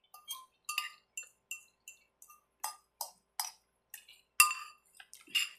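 Utensil clinking against a dish while eating: about a dozen sharp, ringing clinks, two or three a second, with one louder clink about four and a half seconds in.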